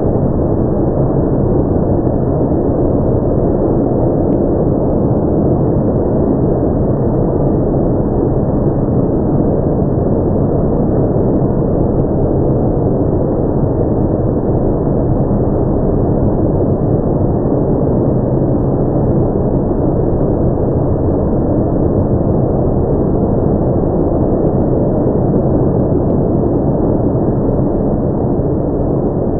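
Automatic tunnel car wash running: spraying water and spinning cloth brushes scrubbing a car, a steady rushing noise with a low hum underneath.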